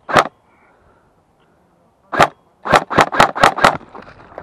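Airsoft G36 electric blowback rifle firing sharp single shots: one just after the start and another about two seconds in, then a quick string of about six shots. Footsteps crunching through dry scrub follow near the end.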